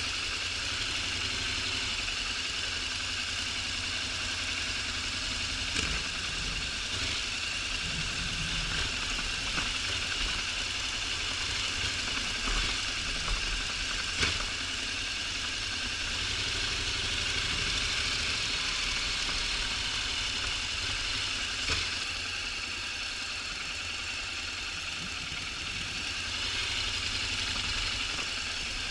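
Honda NC750X DCT's parallel-twin engine running at steady low revs under a constant hiss, with a few sharp knocks or clicks, the sharpest about halfway through.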